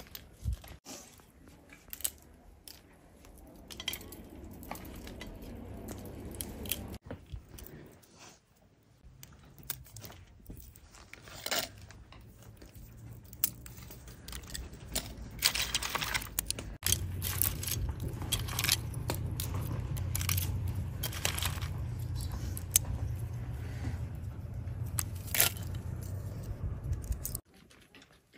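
A grazing cow tearing and chewing grass, then walnuts being cracked and their shells picked apart by hand: a run of sharp cracks and crunches over a steady low rumble.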